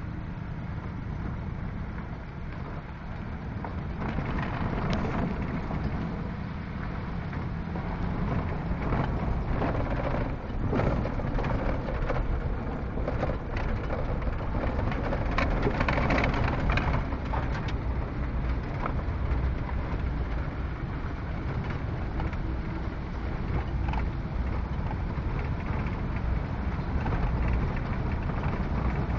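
Vehicle driving on a gravel road, heard from inside the cab: a steady low road rumble with tyres crunching over loose gravel and frequent sharp clicks and rattles.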